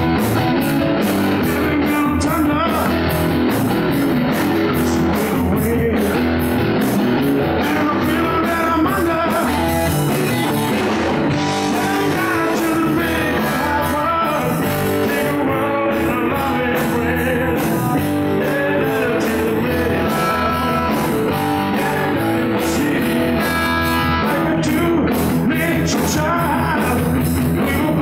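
Live rock band playing a loud, steady up-tempo number: Stratocaster-style electric guitar, electric bass and a drum kit keeping an even beat.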